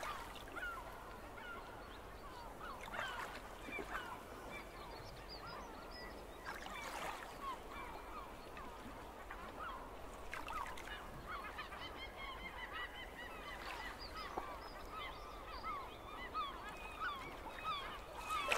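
A flock of birds calling continuously, many short rising and falling honking calls overlapping one another. Under them a faint wash of noise swells briefly every few seconds.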